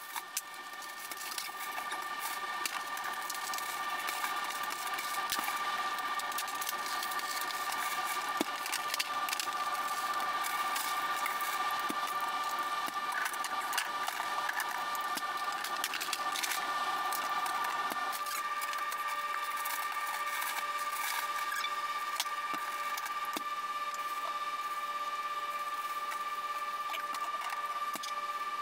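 Fast-forwarded kitchen sounds of groceries being put away: quick clicks, taps and rustles of packages, fridge and cupboard, sped up into a chittering patter over a steady high tone.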